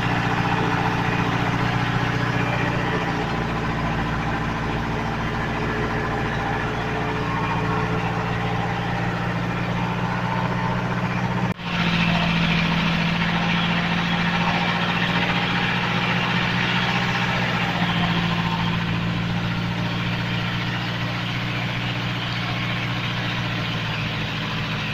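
Mitsubishi L300 engine running steadily as the power unit of a fish-pellet machine, with slight shifts in engine pitch and a momentary drop-out about halfway.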